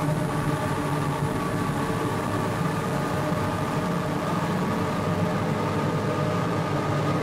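A steady, dense drone from a sound-collage track: many held tones layered over a low, rumbling noise bed, with no breaks or changes.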